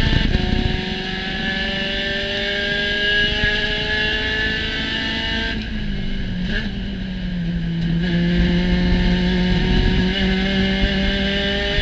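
Spec Racer Ford Gen3 race car's four-cylinder engine under racing load: it shifts up just after the start and climbs slowly in pitch, the note drops away about halfway through as the driver lifts, then it picks up and climbs again near the end. Steady wind and road noise run underneath.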